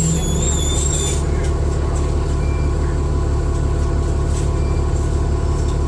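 Dennis Trident II double-decker bus engine running steadily under way, heard from inside the saloon as a deep drone. A high whine sounds in the first second and stops about a second in.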